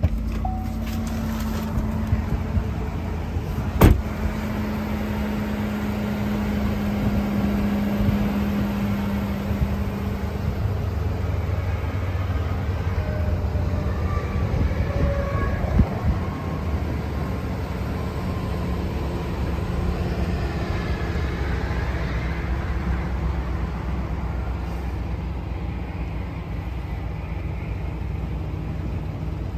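2013 Chevrolet Suburban 2500's 6.0-litre V8 idling steadily, with one sharp thud about four seconds in.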